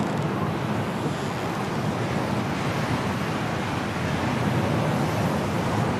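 Strong storm wind blowing in a steady rush of noise, without breaks or sharp gusts.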